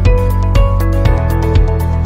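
Background music with sustained notes over a bass line and a steady beat, about two beats a second.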